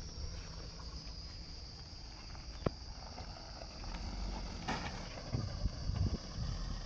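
Mahindra Scorpio-N SUV driving slowly over a dirt track some way off, its engine a low rumble, with insects chirring steadily in the background. A single sharp click comes a little over a third of the way in, and there are a few low knocks near the end.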